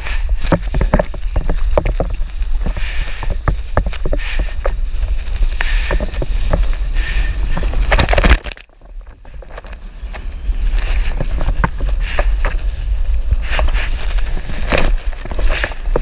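Ocean water rushing and splashing close to the microphone over a heavy low rumble; the sound drops out abruptly about eight seconds in, then builds back a second or two later.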